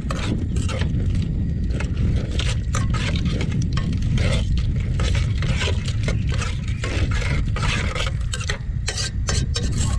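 A metal spoon stirring and scraping around the inside of an aluminium pot of broth, with many quick irregular scrapes and clinks, over a steady low rumble.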